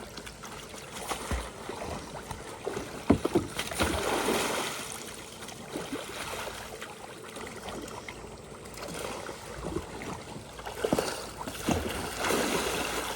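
Water splashing and sloshing around a kayak as it is capsized and rolled back upright in a C-to-C roll, with irregular bursts of splashing, the sharpest about three seconds in and more near the end.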